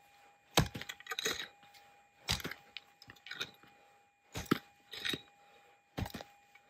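A prospecting pick chopping into hard clay and gravel, about six crunching strikes at uneven intervals, with a faint steady tone underneath.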